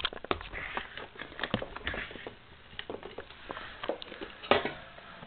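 Irregular light clicks and taps, with one louder click about four and a half seconds in.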